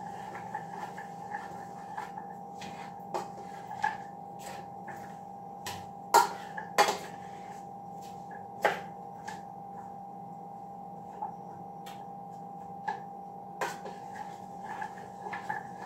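A cooking utensil knocking and clinking against a pan while stirring sautéing vegetables: scattered sharp knocks, a few louder ones in the middle and near the end, over a steady low hum.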